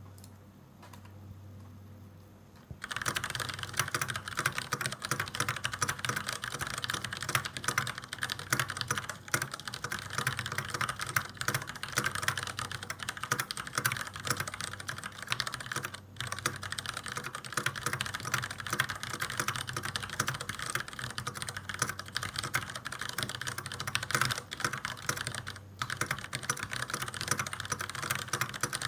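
Fast, continuous typing on a Varmilo VA87M mechanical keyboard with Cherry MX Brown switches and PBT keycaps: a dense stream of key clicks and clacks. It starts about three seconds in, after a faint low hum, and breaks off briefly twice.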